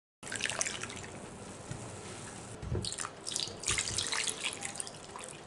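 Red wine, then water from a measuring jug, poured from above into a hot stainless-steel pot of browned beef chunks, splashing and crackling as it hits the pot. The sound starts abruptly just after a cut, with a few louder splashes around three to four seconds in.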